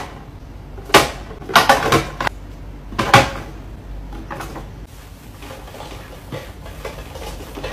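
Cosmetic bottles and clear acrylic makeup organizers knocked and set down on a vanity tabletop: about five sharp clacks in the first three seconds or so. After that comes softer rubbing as the tabletop is wiped with a cloth.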